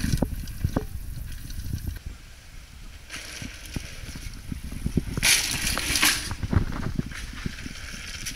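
Mountain bike riding on a dirt trail: tyre noise on loose ground and scattered knocks from the bike, with two bursts of gravelly hiss near the middle. Wind rumbles on the microphone throughout.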